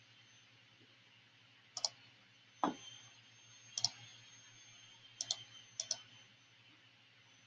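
Computer mouse buttons clicking: about five sharp clicks or quick double clicks spread over several seconds, over a faint steady hum.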